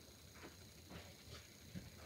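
Near silence: room tone with a few faint short ticks, about two a second.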